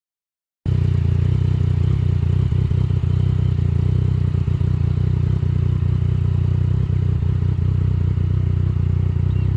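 Yamaha Tracer 900's three-cylinder engine running steadily at low revs, a deep even rumble that starts abruptly just under a second in.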